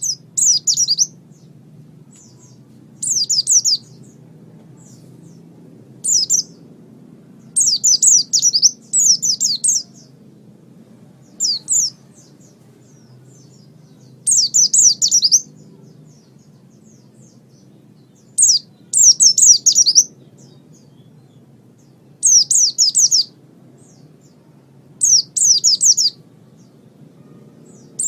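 White-eye (pleci) singing in short bursts of quick, high, downward-sliding notes, repeated every couple of seconds over a faint low hum.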